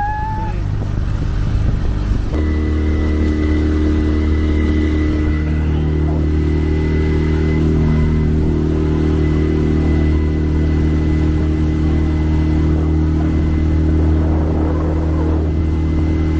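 Rigid inflatable boat's engine opening up about two seconds in, then running steadily at speed: a steady drone with a thin high whine over it.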